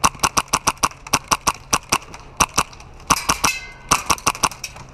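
Airsoft gun firing strings of sharp, rapid shots, at times about eight a second, with a short dense burst about three seconds in.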